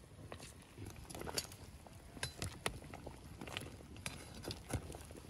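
Large pot of cow's-head broth boiling hard over a wood fire, with scattered soft pops and clicks over a low rumble, as foam is skimmed off with a perforated metal skimmer.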